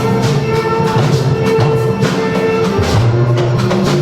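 Loud band music with a steady drum beat, bass and held keyboard notes.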